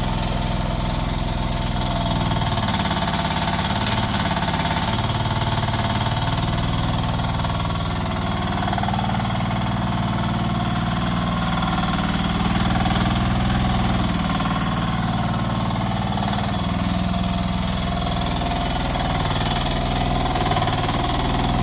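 Rippa R10 mini excavator's engine running steadily, its pitch dipping and recovering a few times as the machine works.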